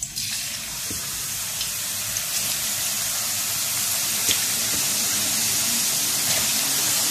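Thin raw potato slices sizzling in hot oil in a kadhai as handfuls are dropped in. The sizzle starts at once and grows louder as more slices go in, with a few small pops.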